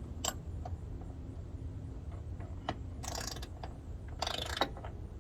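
Hand tools working on the Jeep's metal hood latch hardware: a sharp click, then two short ratchet-like rattling bursts about a second apart, over a steady low hum.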